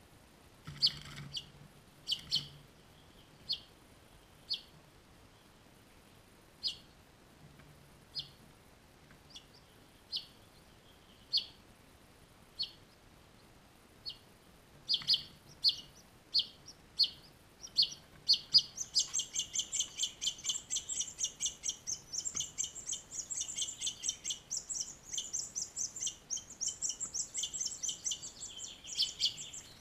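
Finch fledglings chirping at the nest: short high chirps about once a second, becoming more frequent a little after halfway. After that they merge into a fast, continuous run of begging chirps as an adult finch arrives to feed them.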